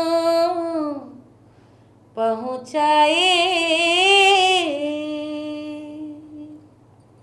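A woman singing a Chhath folk song solo, with no instruments. Her held note tails off about a second in. After a short pause she rises into a long note with vibrato, which slowly fades away.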